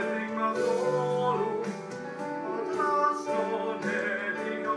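Music: a voice singing over held instrumental notes.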